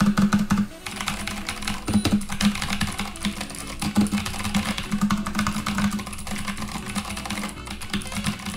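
Continuous typing on an Anne Pro 60% mechanical keyboard with Gateron Blue clicky switches: a rapid, crisp run of key clicks over background music.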